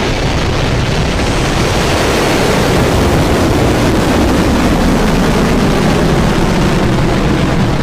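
Firefly Alpha's first stage, four kerosene-and-liquid-oxygen Reaver engines, firing at liftoff: a loud, steady, deep rocket roar.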